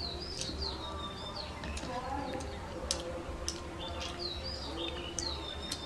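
A bird chirping again and again in short, high whistles that dip in pitch. A few sharp clicks of metal forks against the plates, and a faint low hum underneath.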